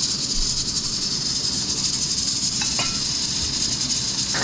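Steady high hiss from a gas stovetop with a pot of broth on it, broken by a couple of light clinks about two-thirds of the way through and again at the end.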